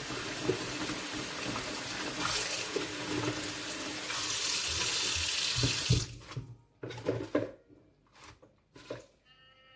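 Kitchen tap running into a stainless steel sink and splashing over lettuce leaves being rinsed in a steel bowl. The water cuts off suddenly about six seconds in, leaving a few short knocks and splashes of the wet leaves being handled.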